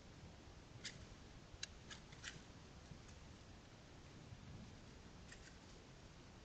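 Near silence: a faint steady hiss with a few short, high clicks, four between about one and two and a half seconds in and two fainter ones near the end.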